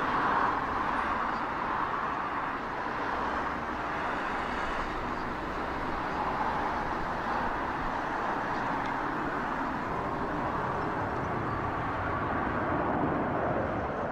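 Airbus A350's twin turbofan jet engines as the airliner flies a steep banking climb overhead: a steady jet noise that swells and eases slowly.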